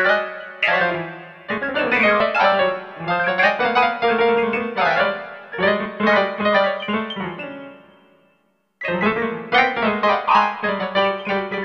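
MIDI piano music playing quick phrases of struck notes. It dies away to a moment of silence about eight seconds in, then starts again.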